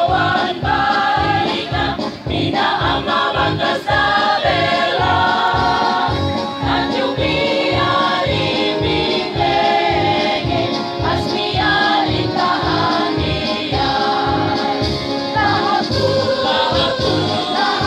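Large choir, mostly women's voices, singing together through microphones over a steady low beat of about two to three pulses a second.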